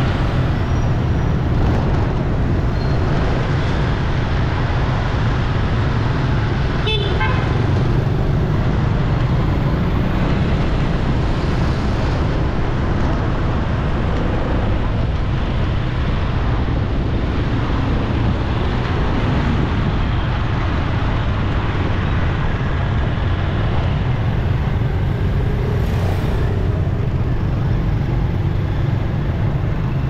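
Steady road traffic noise, with a vehicle horn tooting briefly about seven seconds in.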